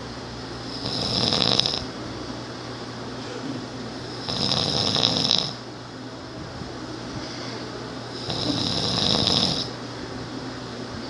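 A sleeping person snoring: three snores about four seconds apart, each lasting about a second.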